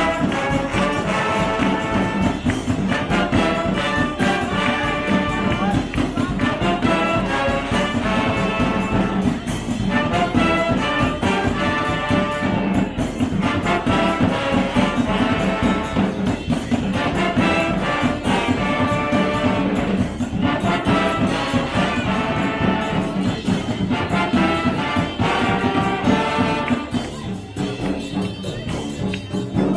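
Live brass band playing: trumpets and trombones carry the tune in repeated phrases over a steady low bass line and percussion.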